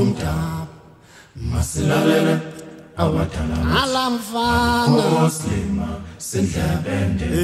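Voices singing a chant-like song in phrases of a second or two, with short breaks between them.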